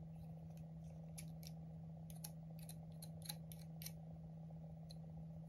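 Faint, irregular small clicks and ticks of hand repair tools working on an opened iPhone 11, over a steady low hum.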